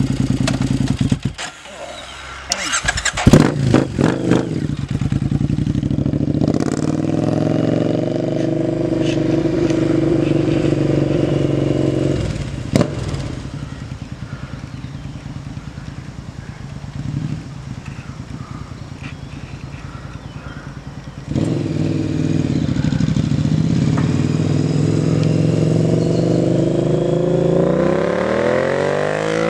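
2009 Triumph Speedmaster's 865 cc air-cooled parallel twin on aftermarket pipes, idling and then pulling away through the gears, fading with distance. It comes back louder, accelerating, for a drive-by pass near the end with a quick drop in pitch. A few loud knocks and clatter about two to four seconds in.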